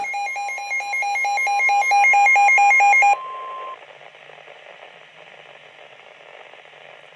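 Emergency Alert System warning tones for a severe weather alert: a loud, fast warble between two pitches, about four or five a second, over a steady tone. The warble cuts off about three seconds in and the steady tone about half a second later, leaving faint radio hiss.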